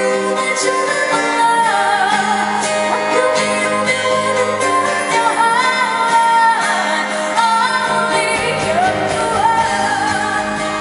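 A female pop vocalist singing live over a band backing track. Deep bass comes in about three-quarters of the way through.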